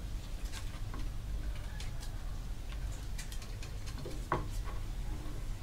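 Kitchen knife cutting lime halves on a plastic cutting board: scattered light ticks and taps of the blade on the board, over a steady low rumble. A short call sounds once about four seconds in.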